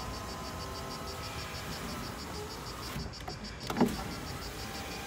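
Volkswagen Polo 3's electric window-lifter motor running, a steady whine that sags slightly as it drives the door glass. About four seconds in there is a sharp clunk as the glass reaches its stop, and the motor then runs again. The motor is working again after repair.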